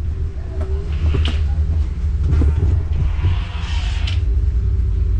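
Power wheelchair rolling down an airport jet bridge, picked up by a camera mounted on the chair: a steady low rumble with a couple of sharp knocks, about a second in and again near four seconds.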